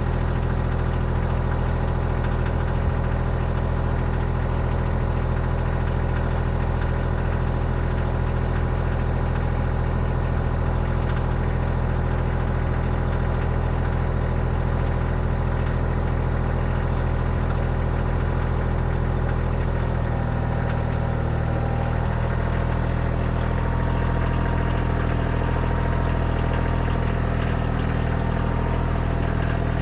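Kioti CK30 compact tractor's diesel engine idling steadily, its note shifting slightly about two-thirds of the way through.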